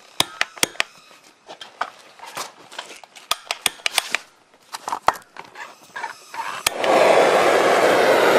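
Sharp metallic clicks and clatter of tools and engine parts being handled, then about seven seconds in a heat gun switches on and runs with a steady blowing hiss, warming the KTM 65 engine case so the chilled bearings will drop in.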